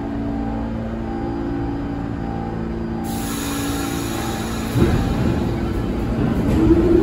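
An R46 New York City subway train standing at the platform with a steady hum, then pulling out about five seconds in: a sudden rise into a rumble of wheels on rails, with the traction motor whine starting to climb near the end.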